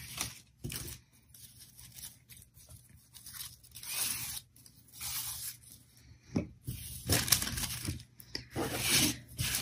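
Scissors snipping through a folded strip of paper to cut it into thin strips: several short rustling bursts with quiet gaps and a few sharp clicks, busiest in the last few seconds.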